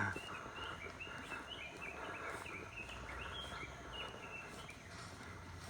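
Birds singing in the rainforest: a busy run of short, high chirping notes that bend up and down in pitch, over a faint steady background hush.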